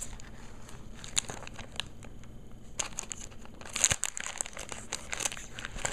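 A foil blind-bag packet being torn open and crinkled by hand. There are scattered crackles at first, then denser crinkling from a little past the middle.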